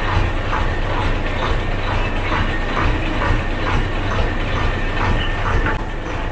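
River launch's engine running with a steady low rumble and a regular clatter about twice a second.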